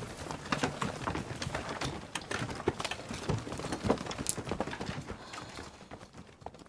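A scramble of many hurried footsteps mixed with knocks and clatter as several people snatch up their things and rush off, dying away after about five seconds.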